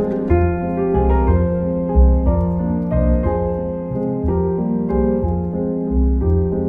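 Background music led by piano.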